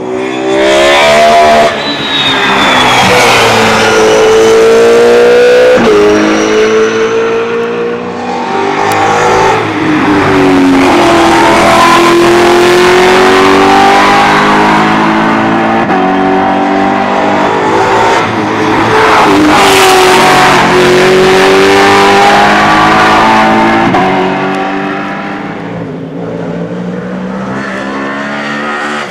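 V8 racing saloon cars under hard acceleration, several engines overlapping. Their note climbs through the revs and drops sharply at each upshift. It eases to a lower, steadier level near the end.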